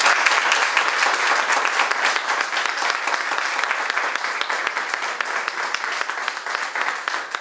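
A group of people applauding, with dense clapping that slowly thins and fades toward the end.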